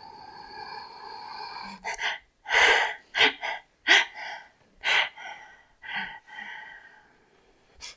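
A person breathing in sharp, loud gasps, about six short breaths in a row, over a steady background hum.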